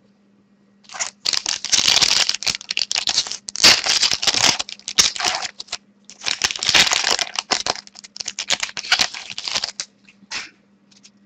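A foil trading-card pack wrapper being torn open and crinkled, in two long spells of loud crackling with a short rustle near the end.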